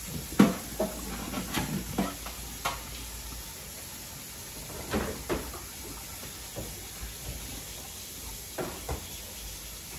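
Scattered knocks and clatters of yellow snapper being scaled in water in a kitchen sink, loudest about half a second in, with a few more around two, five and nine seconds in.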